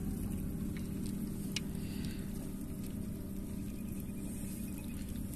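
Seawater lapping and splashing against shoreline rocks over a steady low rumble, with a few faint clicks.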